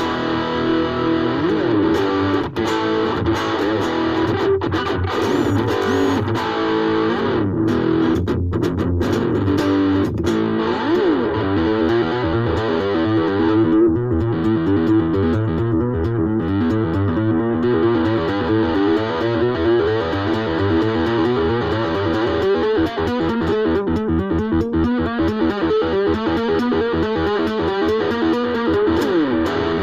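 Ibanez AXS42 electric guitar, rewired with solid-core vintage wire, played through a distorted amp: ringing chords for the first ten seconds or so, then a fast, evenly picked riff from about eleven seconds in.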